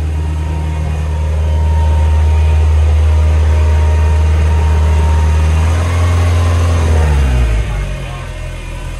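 Subaru flat-four engine in a VW bay window bus running steadily. About six seconds in its pitch rises slightly, then it glides down and winds off about seven and a half seconds in, leaving a fainter hum.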